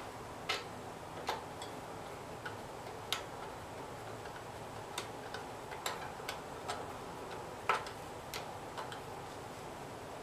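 Scattered light clicks and taps, irregularly spaced, from handling the air cleaner cover and filter element of a Briggs & Stratton 5 hp engine. One sharper click comes about three-quarters of the way through.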